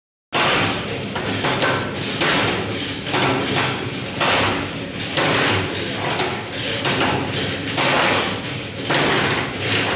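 Construction site noise around steel rigging work: a continuous clatter with repeated knocks and thuds, rising and falling roughly every second.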